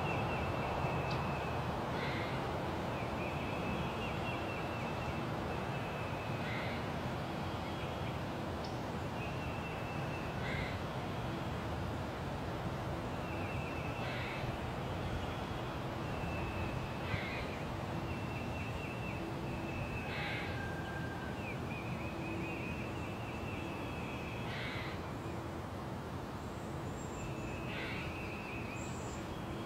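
Spring forest ambience: several birds call repeatedly in short chattering phrases every second or two, over a steady low rush.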